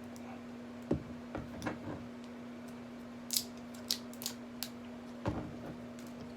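Crackles and sharp clicks of a plastic shrink-band seal being pulled off a hot sauce bottle, with a couple of dull knocks of the bottle being handled, about a second in and about five seconds in.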